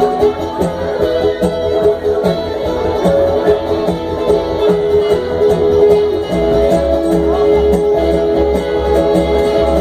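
Live bluegrass band playing an instrumental passage: strummed acoustic guitar, fiddle and upright bass, with held fiddle notes over a steady bass.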